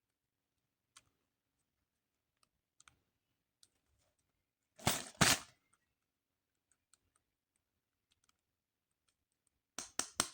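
Hands handling plastic toy packaging and parts: scattered light clicks, two louder rustles about five seconds in, and a quick run of clicks near the end.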